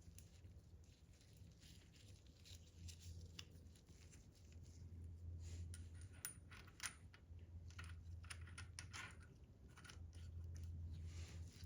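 Faint scattered clicks and ticks over a low steady hum, the sharpest few about six to seven seconds in.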